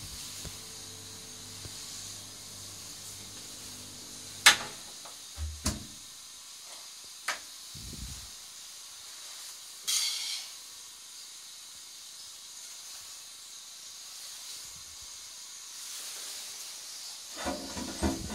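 HLC Dauntless high-level toilet cistern refilling after a flush, a steady hiss of water through its valve, with a few sharp knocks along the way. Near the end the pull chain is tugged, and a louder jumble of clanking and water noise sets in.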